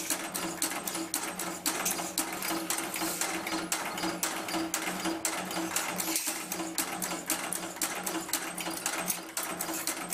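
Automatic packing-clip making machine running, forming clips with a fast, even clatter of about five strokes a second over a steady motor hum.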